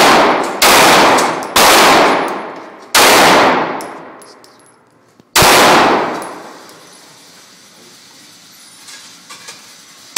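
Glock 26 subcompact 9mm pistol fired four times, the first three about a second apart and the fourth after a pause of about two and a half seconds, each shot echoing in a long fading tail.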